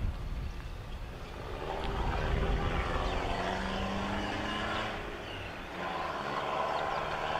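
A distant engine running: a low rumble at first, then from about two seconds in a busier engine sound with a steady low hum in the middle.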